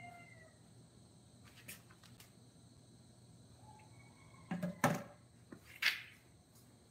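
The end of a rooster's crow fades out in the first half-second. Then a few faint clicks, and two loud sharp knocks about a second apart near the end.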